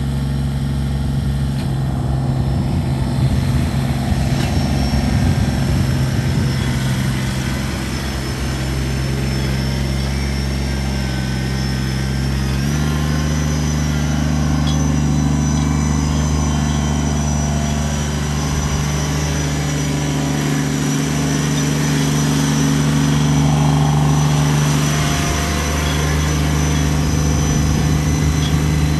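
Kubota BX23S compact tractor's three-cylinder diesel engine running steadily as the tractor drives. Its engine speed steps up slightly about halfway through.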